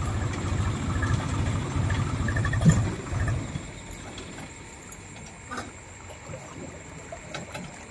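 Swaraj 843 XM tractor's diesel engine running with a low, even chugging, a single loud knock about two and a half seconds in; the engine sound falls away sharply about three and a half seconds in, leaving faint splashing and clicks.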